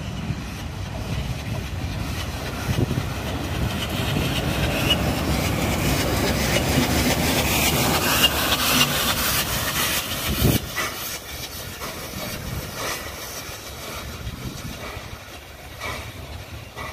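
FS Gr.740 2-8-0 steam locomotive passing close by with steam hissing. It is loudest about eight seconds in, gives a heavy thud a couple of seconds later, then fades with regular clicks as it moves away.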